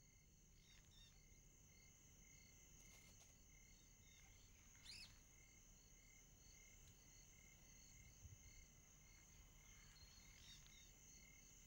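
Near silence, with faint insects chirping in a steady even rhythm of about two chirps a second.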